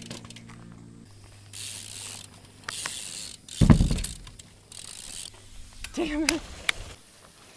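BMX bikes riding dirt trails: the freewheel hub ticks while coasting and tyres hiss over the dirt, with a heavy thump about halfway through and a brief shout near the end.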